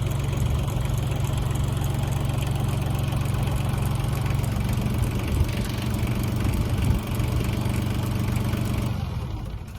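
Tractor engine running steadily, its note shifting slightly about halfway through, then falling away near the end.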